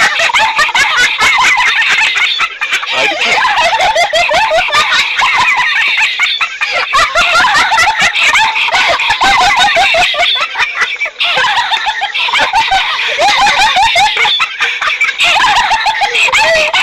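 Laughing sound effect: high-pitched giggling and laughter in quick, closely packed bursts, with no break.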